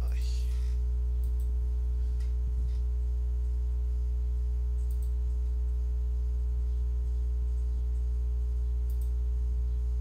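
Steady low electrical hum, with a stack of fainter evenly spaced tones above it, typical of mains hum picked up by the recording. A brief soft hiss comes just after the start.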